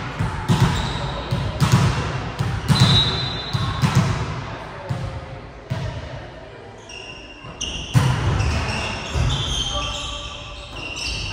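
A volleyball bounced on a sports-hall floor about once a second, each thud echoing in the hall. A sharp hit about eight seconds in is followed by short high squeaks of sneakers on the court floor.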